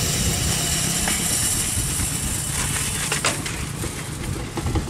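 A tractor engine idling with a steady low hum, under a steady high hiss. A couple of sharp clicks come a little over three seconds in.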